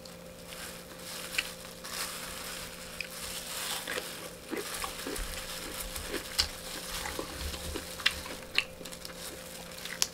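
Rustling and crackling of a disposable plastic glove as a hand presses and gathers rice on a foil-lined tray and handles crispy fried chicken, with many small clicks and crinkles.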